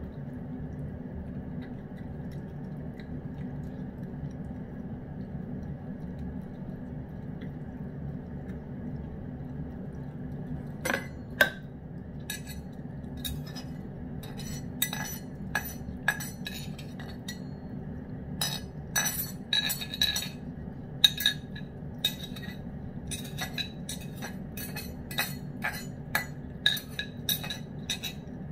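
Irregular sharp metallic clicks and clinks from a metal fork picking at fried chicken meat in the bowl, starting about eleven seconds in and coming more thickly in the second half, over a steady low hum.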